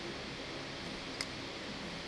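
A single light click about a second in, as a slim hand tool works at the metal shell of a multi-pin cable connector, over a steady background hiss.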